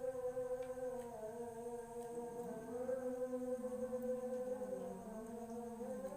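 A group of women chanting Islamic prayers in unison, with long held notes that slowly rise and fall in pitch.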